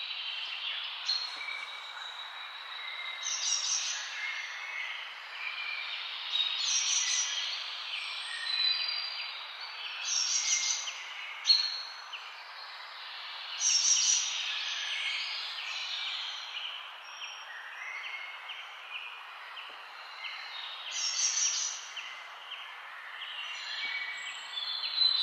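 Birds chirping and calling in short repeated phrases every few seconds over a steady even hiss, like an outdoor nature-ambience recording.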